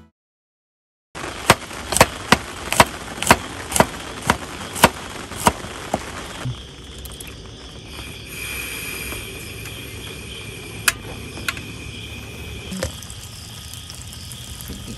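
Piezo igniter of a portable butane canister stove clicking about ten times in a row, roughly two clicks a second. Then the burner lights and the gas flame hisses steadily under the frying pan.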